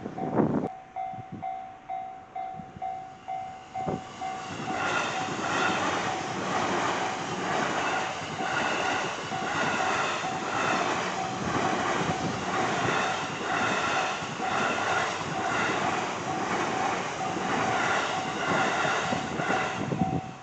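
Level-crossing bell ringing in steady pulses. About four seconds in, a Jōban Line train arrives and passes through the crossing at speed, its wheels clattering in a regular rhythm until almost the end, with the bell still ringing over it.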